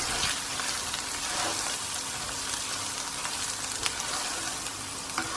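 Onions, chillies and ginger-garlic paste sizzling steadily in hot oil as ground turmeric and paprika cook through, with a couple of light clicks near the end.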